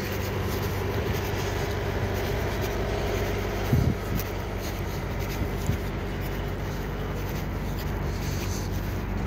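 Steady low hum of motor vehicles nearby, with one short thump a little under four seconds in.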